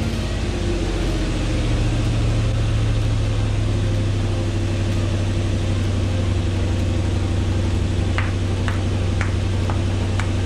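Toyota Tundra's 4.7-litre V8, just fitted with a VVTi intake plenum and 12-hole injectors, idling steadily right after starting, settling slightly in the first couple of seconds. A few faint ticks come through near the end.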